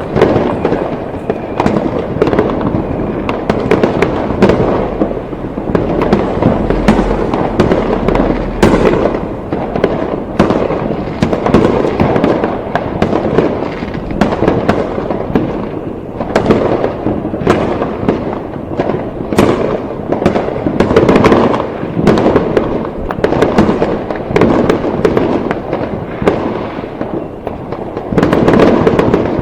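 Fireworks going off continuously: dense, overlapping bangs and crackling reports, many each second, with no let-up.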